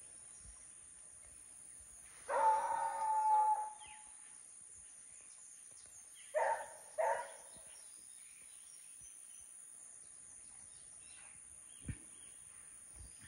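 American-type hunting hound baying while trailing game by scent: one long drawn-out bay about two seconds in, then two short barks around six and seven seconds.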